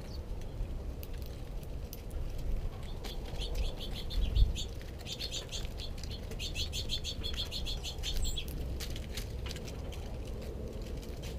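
Small birds pecking seed off a snowy wooden tabletop close by, a scatter of light taps, with a bird chattering in fast repeated high notes from about three to eight seconds in. One soft thump comes about four seconds in.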